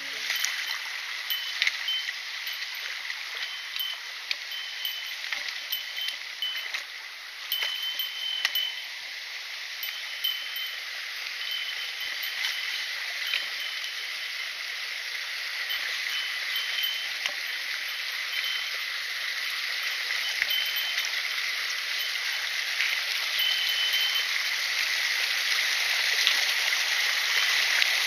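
Mountain stream running over rocks, a steady rush of water that grows louder near the end as a cascade comes close. A small bear bell jingles now and then over it, with a few sharp clicks.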